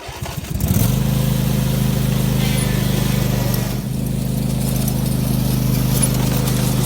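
The riding lawn tractor's 24 hp Briggs & Stratton Intek V-twin engine rising in pitch during the first second, then running steadily and loudly.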